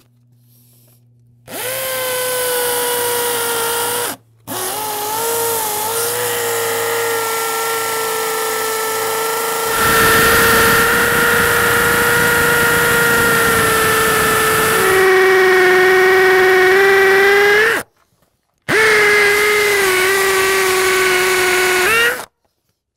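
DeWalt cordless drill boring into brick with a quarter-inch masonry bit in plain rotary mode, the motor whining steadily in three runs with brief stops about four and eighteen seconds in. From about ten seconds in, the grinding of the bit in the brick joins the whine, and near fifteen seconds the pitch drops as the motor takes load. The bit is one the user judges not good quality.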